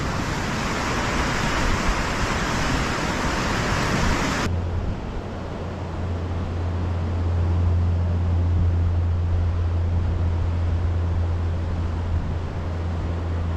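Sea surf washing over the rocks, a steady hiss. About four and a half seconds in it changes abruptly to a steady low rumble, with the surf fainter behind it.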